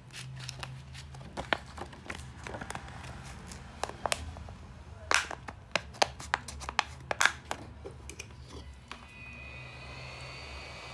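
Irregular sharp clicks and crackles of plastic as a phone's screen assembly is pried and worked apart by hand with tools. About nine seconds in, a steady whining hiss starts up.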